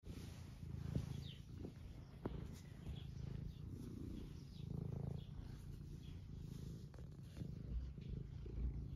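Domestic cat purring steadily as it is stroked: a continuous low pulsing rumble, with a few faint clicks from the hand and fur.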